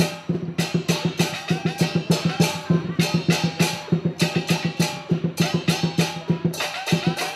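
Percussion music for a dragon dance: drums with sharp strokes in a fast, steady beat.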